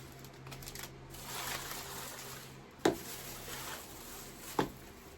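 Small items and packaging being handled and moved on a tabletop: a soft rustle, then two sharp knocks as things are set down.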